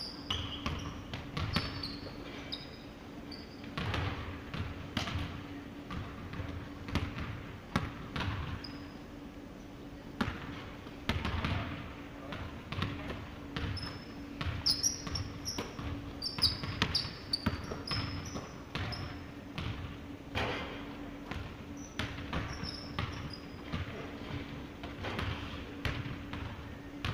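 A basketball bouncing on a hardwood gym floor as players dribble and play, in irregular thuds. Sneakers squeak in short high chirps on the wood.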